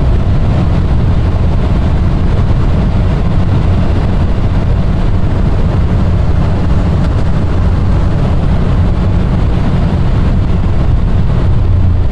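Inside the cabin of a 1996 BMW 750iL (E38) at close to 240 km/h: its 5.4-litre V12 running at high revs under steady load, mixed with heavy wind and road noise, a loud, even low rumble.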